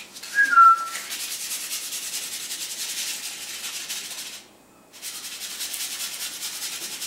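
Crumpled paper scraped and rubbed against a concrete floor in a fast, steady run of strokes to catch a puppy's attention. It pauses for about half a second a little past the middle. A brief high-pitched squeak comes about half a second in.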